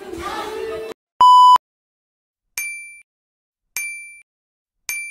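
Voices and corridor noise for about a second, cut off abruptly, then a short, loud electronic bleep. Three text-message alert pings follow, about a second apart, each ringing briefly, as chat bubbles appear on screen.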